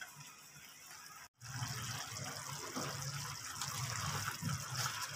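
Ridge gourd curry bubbling in its own released water in a frying pan, stirred with a spatula. The sound is faint at first, then after a brief dropout about a second in, steady bubbling sets in.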